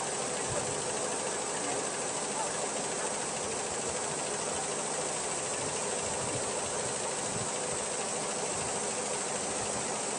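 Multi-needle quilting embroidery machine running while stitching, giving a steady mechanical clatter and hiss.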